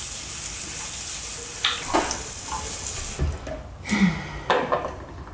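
Water running from a bathroom sink tap, a steady hiss with a few splashes, shut off about three seconds in. A few short handling knocks follow near the end.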